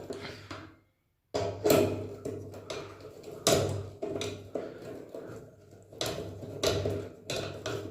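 Metal knocks and clanks from tools working on an electric water heater's element assembly, about one strike a second with a short ring after each. The sound cuts out briefly about a second in.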